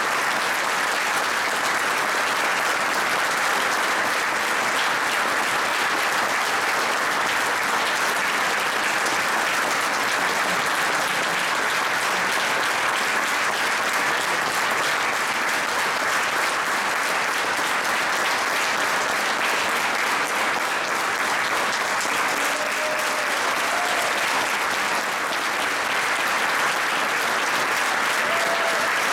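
Audience applauding steadily, sustained clapping from a large crowd.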